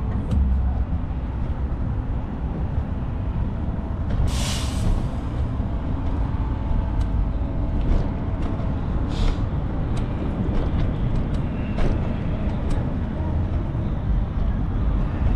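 Steady low rumble of road traffic, with two short hisses about four and nine seconds in.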